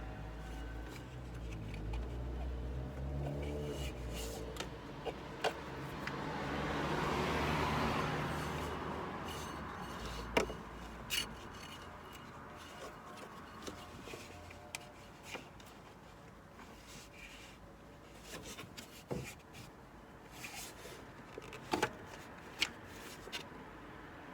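Hand-tool work on a car's engine bay: scattered light metallic clicks and knocks, with some rubbing, as the auxiliary drive belt is worked back onto its pulleys and the tensioner is moved with a Torx socket. A swell of noise rises and falls about six to nine seconds in.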